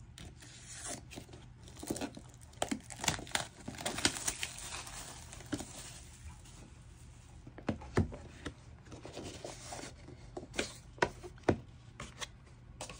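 Plastic shrink wrap being torn and peeled off a music album: a dense run of tearing and crinkling in the first few seconds, then scattered sharp crackles as the film is pulled away.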